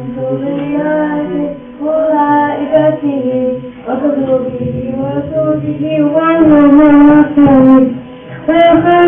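A child's voice chanting an Arabic kalima in long, drawn-out melodic phrases, with held notes that waver in pitch and short breaths between phrases.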